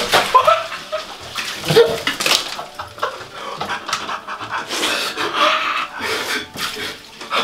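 Men panting, gasping and groaning at the shock of ice-cold bath water, in short irregular breathy bursts with brief pitched cries. Water sloshes in the tub as hands go into the ice bath.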